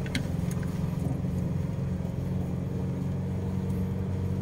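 A vehicle's engine and tyres drone steadily, heard from inside the cabin while it drives along a rough dirt track. A couple of faint clicks come just after the start.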